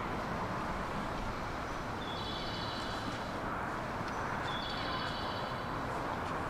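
Busy station-platform ambience beside a standing electric commuter train while passengers board: a steady hum and bustle. Two brief high-pitched tones sound about two seconds in and again about four and a half seconds in, each lasting about a second.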